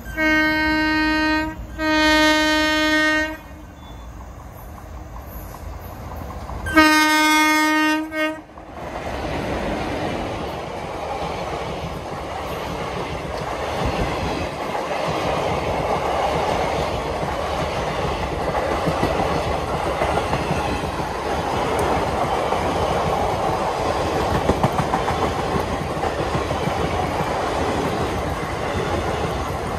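Indian Railways passenger train's horn sounds two blasts of one steady tone, then a third about seven seconds in, as the train approaches. From about eight seconds the train passes at speed: a steady loud rush with the clatter of wheels on rail joints.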